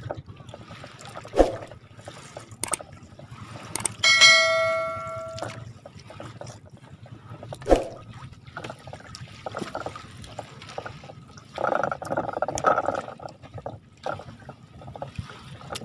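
A fine-mesh fish-cage net hauled by hand up over a boat's side, with water splashing and dripping off it, loudest near the end. About four seconds in, a single bell-like ding rings and fades over about a second and a half.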